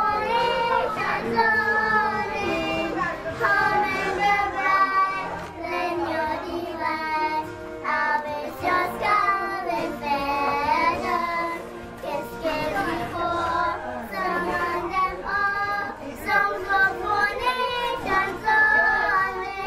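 Two young girls singing a song together, their voices sustained and wavering in pitch.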